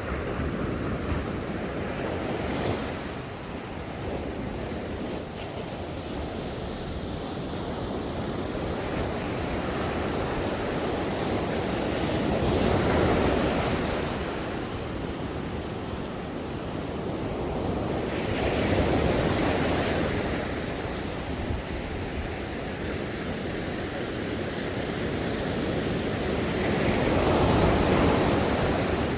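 Ocean waves washing onto a shore, a steady rush of surf that swells and eases in slow surges, three larger waves cresting over the span.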